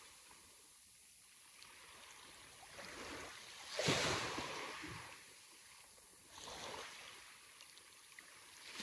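Sea waves breaking and washing up the shore, each one a surge of rushing hiss that swells and fades: the biggest about four seconds in, a smaller one about two and a half seconds later, and another building at the end.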